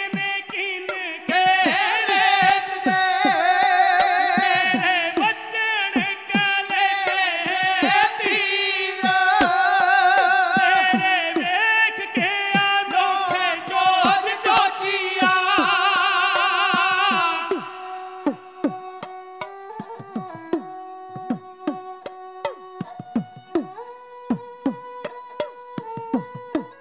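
Dhadi folk music from a sarangi and two dhadd hourglass drums. For the first 17 seconds or so a loud, wavering melody with singing runs over quick drum strokes. It then drops to quieter held sarangi notes over steady dhadd beats.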